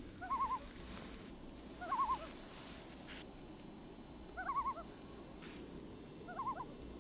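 A bird calling four times, a short warbling call repeated about every two seconds over a faint steady background.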